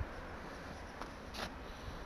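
Faint steady background hiss and low rumble, with a soft click about a second in and a brief soft rustle shortly after.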